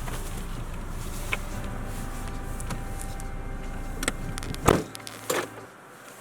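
Inside a car: a steady low engine hum, then two sharp clunks a little over halfway through, after which the hum drops away.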